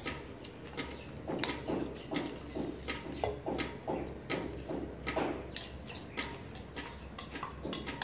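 Someone eating: a spoon and fork clicking and scraping against a bowl at irregular intervals, with chewing in between.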